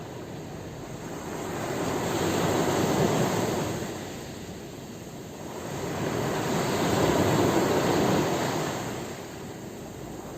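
Sea waves breaking and washing ashore: the surf rises and falls in two swells, about five seconds apart.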